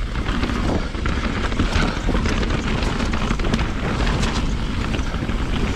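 2020 Rocky Mountain Instinct BC mountain bike ridden down a rough, wet dirt trail. The tyres rumble steadily over dirt and roots, and the bike gives many short knocks and rattles.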